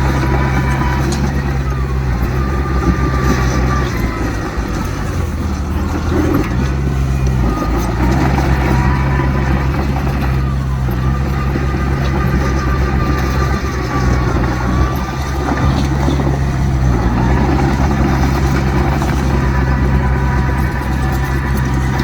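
Heavy diesel engines of earthmoving machinery running under changing load. The deep engine note shifts in pitch several times, and faint whines glide up and down above it.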